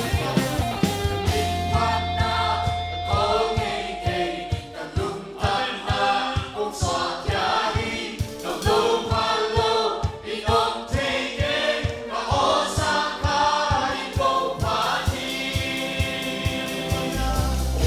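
Worship team and congregation singing a worship song together, backed by a live band with electric guitars and a steady kick-drum beat.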